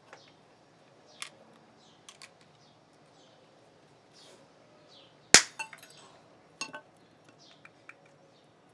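Sharp clicks and knocks of small hard parts being handled, with one loud snap about five seconds in and a quick pair of clicks just after.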